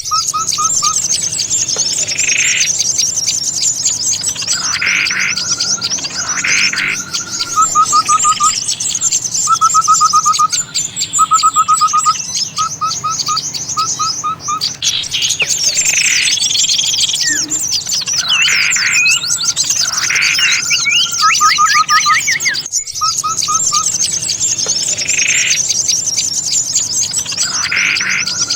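Many small birds' calls layered into a lure recording for trapping small birds. A constant dense high chattering runs over short trills repeated every second or two, with a brief break a little before the end, where the recording loops or is cut.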